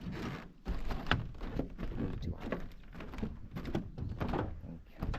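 A run of irregular knocks and thuds, several a second, with no speech.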